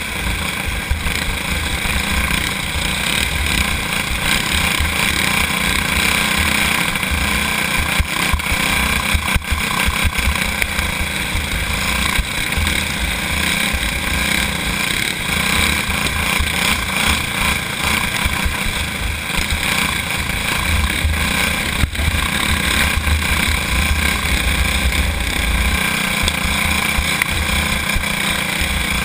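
Go-kart engine running hard at racing speed, heard from on board the kart, loud and steady.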